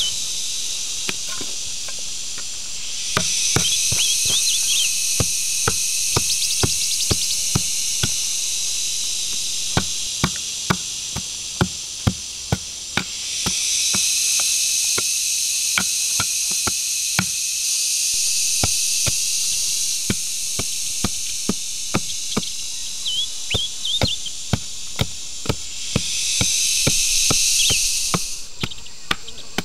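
A wooden club striking the tops of sharpened bamboo stakes to drive them into the dirt floor of a pit: a steady run of sharp wooden knocks, about one or two a second. Insects buzz loudly over it, swelling up and dying away three times.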